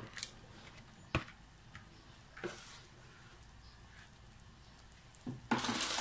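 Soaked glass noodles being laid by hand into a wok of simmering broth: a few light clicks and soft wet sounds over a faint steady background, then a brief loud scraping rustle near the end.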